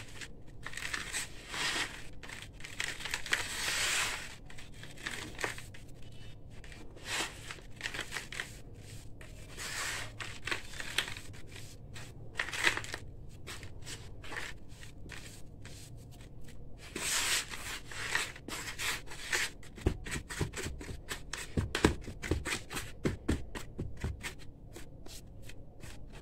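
Gritty crushed-concrete sand crunching and rasping as hands squeeze, rub and crumble it in a plastic bucket, in irregular handfuls. From about 20 seconds in, a series of soft low thumps joins the crunching as the hands press and pat the mix.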